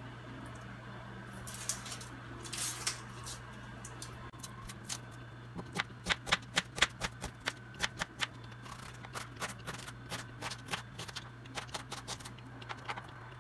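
An onion's dry skin rustling as it is peeled, then a kitchen knife chopping an onion on a plastic cutting board: fast, uneven taps of the blade on the board, several a second, starting about five seconds in.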